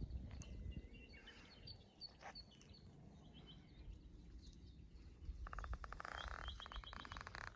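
Faint birdsong: scattered short high chirps, then a rapid buzzy trill starting about five and a half seconds in, over a low background rumble.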